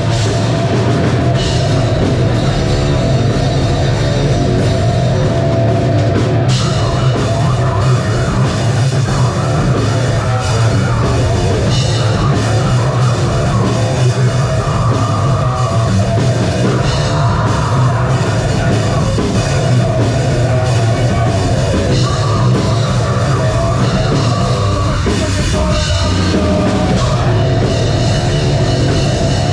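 Live metal band playing loud, at full volume: distorted guitars, bass and drum kit, with no break in the song.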